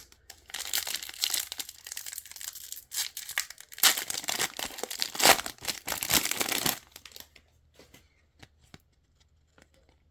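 A trading card pack wrapper being torn open and crinkled in two stretches of a few seconds each, then a few light clicks as the cards are handled.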